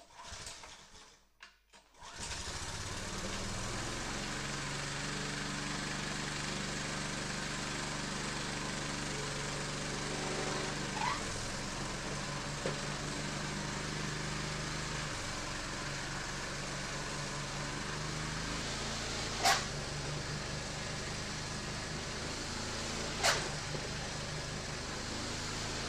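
Snow thrower engine starting about two seconds in and then running steadily, test-run to check the newly replaced drive belt for the throwing mechanism. Two sharp clicks come late on.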